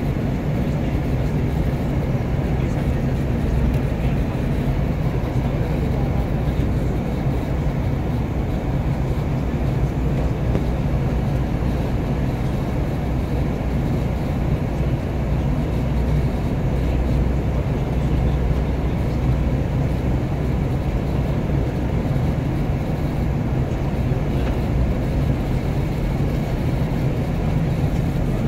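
Airliner cabin noise in flight: a steady low rumble of jet engines and rushing air.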